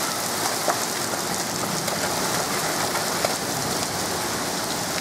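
Heavy thunderstorm rain pouring down steadily, a dense even hiss of drops striking the ground and standing water.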